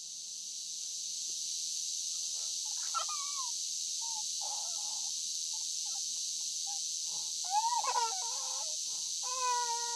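A toddler whimpering and fussing in a few short, wavering cries, the strongest near the end, over a steady high hiss that swells in over the first second or two.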